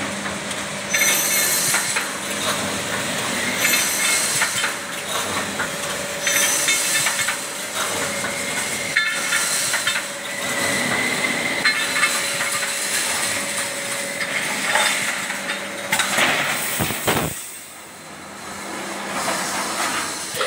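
Coil-feeding welded wire mesh machine running: a steady hum with bursts of hissing and clattering that repeat about every two and a half to three seconds, easing off briefly near the end.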